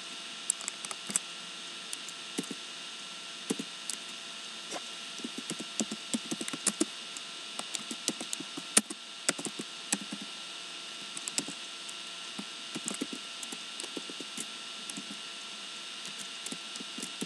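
Typing on a computer keyboard: irregular key clicks, some in quick clusters, over a steady background hiss.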